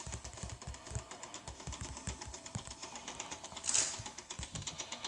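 Rapid clicking and tapping of buttons being pressed over and over, several taps a second, with a brief rustle about three and a half seconds in.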